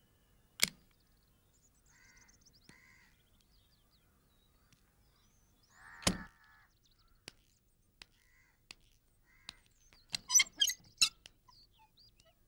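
A car door unlatches with a sharp click and is shut with a thud about six seconds in, while crows caw now and then. Near the end comes a quick run of louder, sharp clattering sounds.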